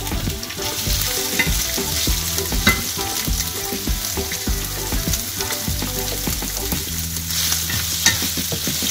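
Raw prawns sizzling as they fry in hot olive oil with browned garlic, with scattered clicks and scrapes of a wooden spatula being moved around the pan.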